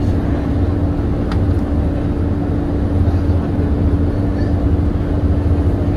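Volvo B7TL bus's diesel engine running steadily, heard from inside the bus, with a steady whine from its cooling fan held over the low engine drone.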